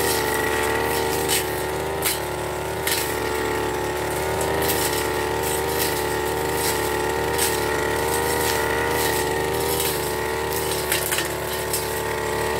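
Backpack brush cutter running at high speed as it cuts grass and weeds, its engine pitch wavering slightly under the load, with occasional sharp clicks.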